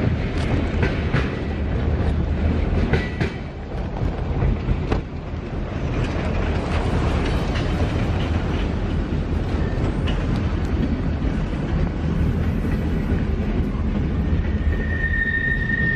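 Railroad cars rolling through a rail yard: a steady low rumble, with wheels clicking over rail joints. A high steady wheel squeal starts near the end.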